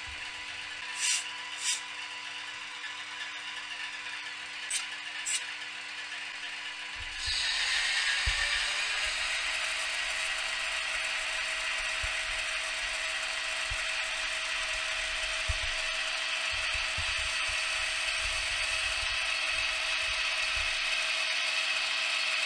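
Zimo sound decoder in a TT-scale class 131 'Ludmilla' model diesel locomotive playing its diesel engine sound through the model's small speaker. For about seven seconds it hums quietly with a few short clicks, then it turns suddenly into a louder running sound with a tone that slowly rises, along with the whir of the model's mechanism.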